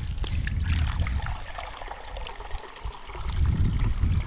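Water running from a garden hose into a glass measuring cup, filling it toward the one-liter line, with a low rumble underneath for the first second or so and again near the end.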